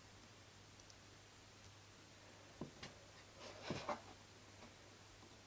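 Faint clicks and light knocks of small plastic toy figures and a toy chair being handled and set down on a tabletop: a couple about two and a half seconds in, then a short cluster just before four seconds, otherwise near silence.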